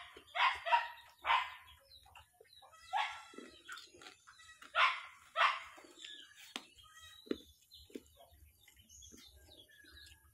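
A dog barking: about six short barks in uneven bunches over the first six seconds, then it stops. A few faint sharp clicks follow.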